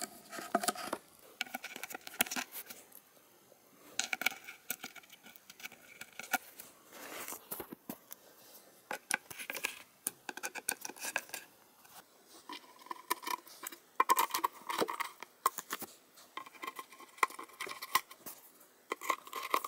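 Screwdriver turning the plastic lock fittings in the side of an IKEA Hauga drawer, tightening them onto the screws that come through: irregular small clicks and scrapes of plastic, metal and board, with some handling of the panel.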